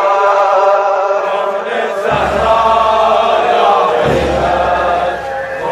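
Shia mourning chant (latmiya): male voices chanting a sung lament together, as in a procession.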